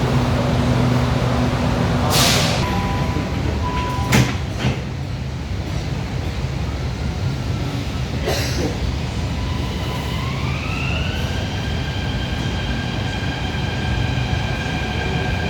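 Delhi Metro train running, heard from inside the car: a steady low rumble with a few short hisses and a click, then an electric whine that rises in pitch about ten seconds in and holds.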